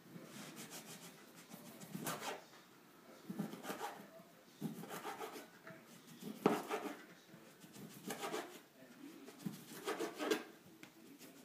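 A knife sawing slices off a sausage on a cutting board: a string of short rasping strokes, roughly one to two seconds apart, some ending in a light knock of the blade on the board.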